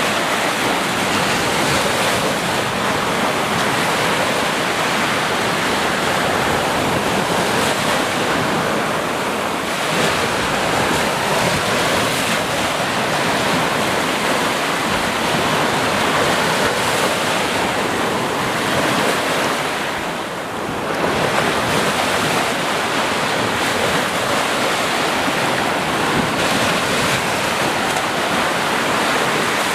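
Ocean surf: waves breaking and washing in without pause, with a brief lull about two-thirds of the way through.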